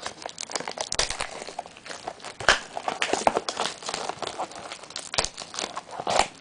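Plastic wrapping on a sealed trading-card box crinkling and crackling as it is opened, a quick irregular run of sharp crackles.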